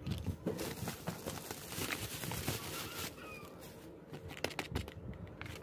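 Plastic blister packaging and its card backing being handled and crinkled, a rustling with many small clicks. It is densest in the first three seconds and then thins out.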